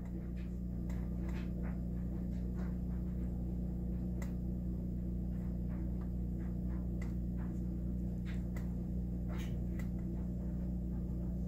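Steady low electrical-sounding hum with scattered light clicks and taps as the metal oven door hinge and its roller are handled.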